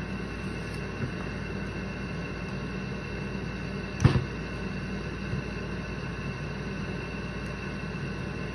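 Steady low room hum, with a few faint clicks and one sharp knock about four seconds in from fingers working at the mouth of a plastic corn syrup bottle.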